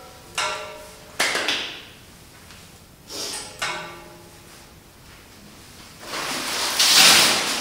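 A few sharp knocks with a short ringing, glass against the metal frame of a glass-and-metal side table as its shelf is handled, then a louder noisy swell near the end.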